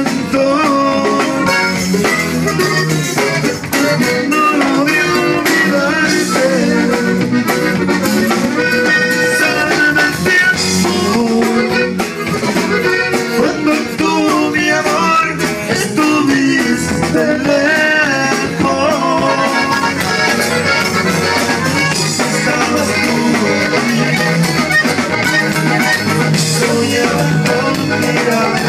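Live norteño band playing: a button accordion over guitar and a drum kit, amplified through the stage sound system.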